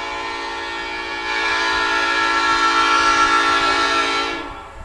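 Old-cast Nathan Airchime P5 five-chime locomotive air horn sounding one long chord, which swells louder about a second in and cuts off near the end.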